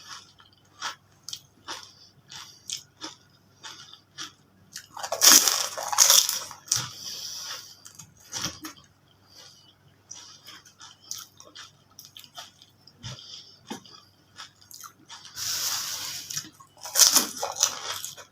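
Mouth eating sounds of fuchka (pani puri): loud crunching bites into the crisp shells about five seconds in and again near the end, with wet chewing and mouth clicks in between.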